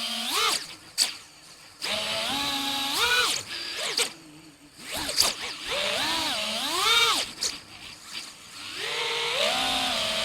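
Brushless motors of a 5-inch FPV quadcopter whining, the pitch rising and falling with the throttle. The sound drops almost to silence three times, at throttle cuts, and then climbs back up.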